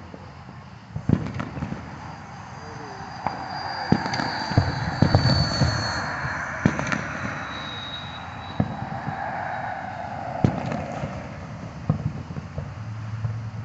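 Aerial firework shells bursting overhead: a dozen or so sharp bangs at irregular intervals, some coming close together.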